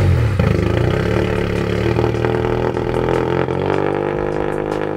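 Turbocharged Toyota GR86 flat-four engine breathing through a freshly fitted Tomei exhaust, just after starting: the revs flare briefly, then settle into a steady idle about three and a half seconds in.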